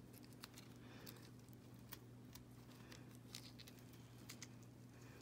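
Faint, scattered light clicks and patters of pomegranate arils being picked from the peel by hand and dropping into a stainless steel bowl, over a low steady hum.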